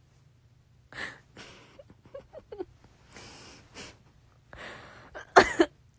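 A woman's breathy, stifled laughter close to a phone microphone: a series of short, airy exhalations, ending in one loud, sharp burst of laughter near the end.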